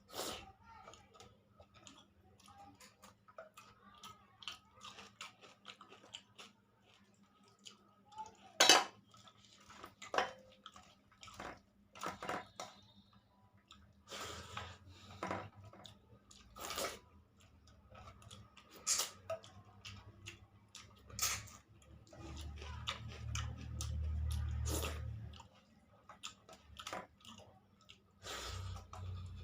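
Someone eating a meal of rice, dal and curry: quiet chewing and mouth sounds with scattered clicks and clinks of the plate. One sharp knock about nine seconds in, and a low rumble for a few seconds near the end.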